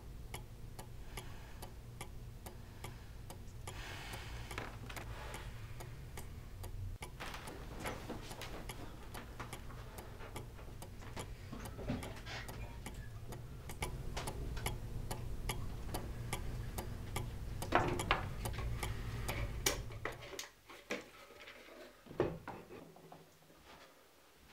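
Clock ticking in a steady, even rhythm over a low steady hum; the hum cuts off suddenly near the end, leaving a few scattered knocks.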